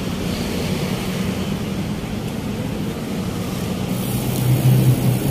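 Steady road traffic going by, with a vehicle engine passing close and growing louder about four seconds in.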